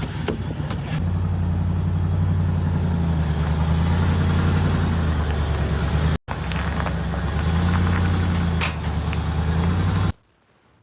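Truck engine running steadily, louder from about a second in, with a brief cut just after six seconds; it stops abruptly about ten seconds in.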